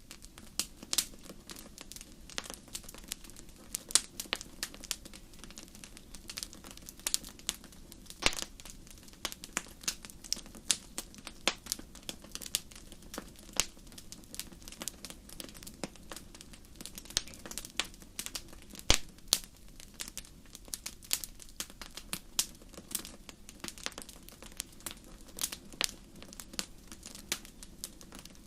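Wood fire crackling steadily, with irregular sharp pops and snaps over a soft low rumble of the flames.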